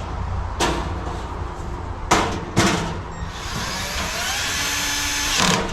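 A few sharp knocks, then a Milwaukee 12-volt cordless drill/driver runs for about two and a half seconds driving screws into the steel nesting-box parts, its motor whine rising and then holding steady.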